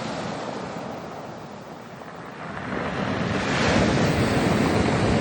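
Black Sea surf: the rush of a wave ebbs away, then a new wave swells in and washes ashore about halfway through.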